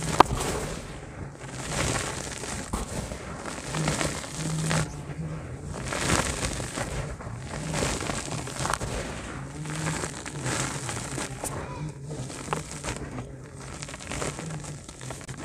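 Hands squeezing and crumbling dry grey dirt, the lumps crackling and the loose dirt pouring back onto the pile with a sandy hiss, in handfuls that swell and fade every second or two.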